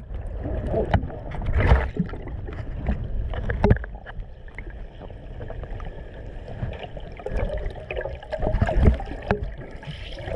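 Muffled underwater sound of seawater sloshing and gurgling around a submerged action camera, with irregular knocks and a faint steady hum.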